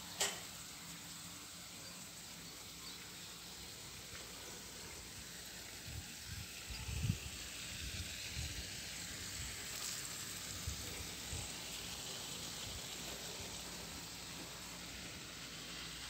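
Steady faint hiss of outdoor background noise, with a sharp click just after the start and a few low bumps about six to eight seconds in, like handling or wind on the phone's microphone.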